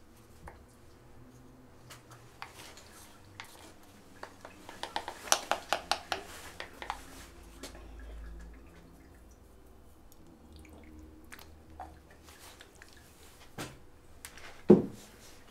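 Kitchen clatter: a quick run of light clinks of dishes and utensils a few seconds in, scattered small knocks, and one loud knock near the end.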